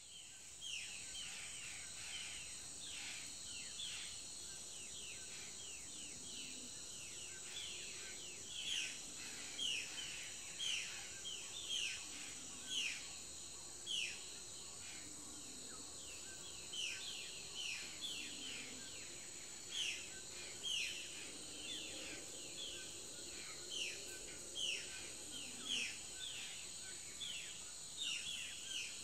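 Forest ambience: a steady high-pitched insect drone, with a bird repeating short falling whistled notes several times a second and some louder notes about once a second.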